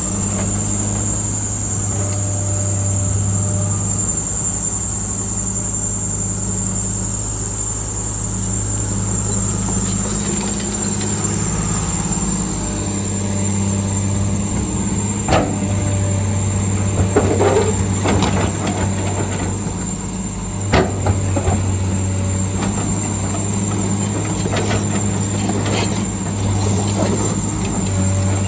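Excavator's diesel engine running steadily under load while loading marble blocks onto a truck, with a steady high whine over it. A few sharp knocks and clanks come in the second half.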